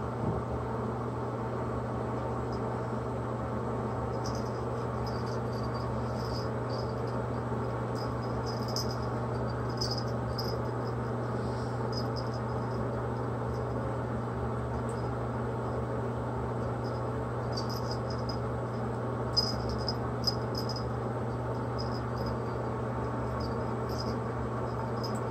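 Ferret and kitten play-fighting on a shaggy rug: faint, high, chirp-like sounds come in scattered clusters over a steady low hum, with two soft knocks close together in the second half.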